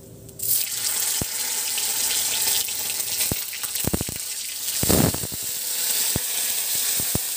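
Paneer pieces frying in hot oil in a steel kadai: a dense sizzle that starts suddenly about half a second in as the paneer hits the oil, with a few pops and knocks through it, the loudest about five seconds in.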